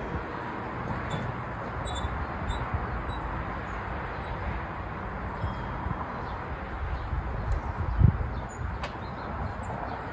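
Outdoor ambience with wind rumbling on the microphone and a few faint bird chirps. A dull thump about eight seconds in comes from furniture and boxes being shifted inside the box truck.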